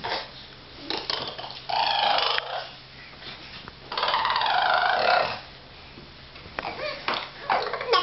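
Nine-month-old babies vocalizing in several separate bursts, each about a second long, with quieter gaps between.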